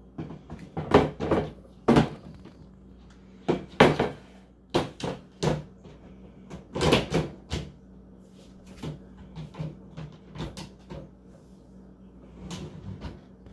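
A cart drawer being slid in and out on metal side slides, giving repeated knocks and short sliding rattles as it is pushed shut and pulled open to test its fit.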